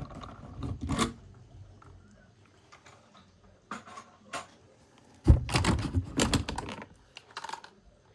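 Scattered clicks, knocks and light scrapes of plastic toy vehicles and their packaging being handled during unboxing, with a quick flurry of clicks about two-thirds of the way through.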